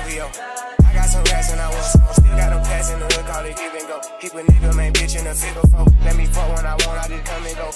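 Hip-hop background music with deep, long bass notes that drop out and come back, and sharp drum hits over them.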